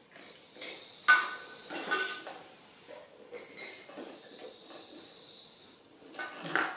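Hollow plastic toys knocking and clattering on a tiled floor: a few sharp knocks, the loudest about a second in, another just before two seconds and one near the end.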